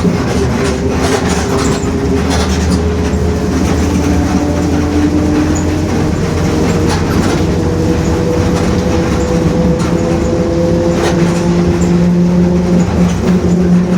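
Mercedes-Benz OF-1721 city bus under way, its engine running with a steady droning whine from the growling rear differential that rises slightly in pitch through the middle, with occasional knocks and rattles.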